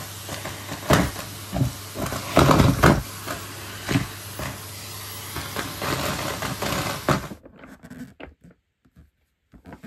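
Vacuum cleaner running with a steady hiss and low hum, with knocks and bumps over it. The running sound cuts off abruptly about seven seconds in, leaving only scattered small clicks.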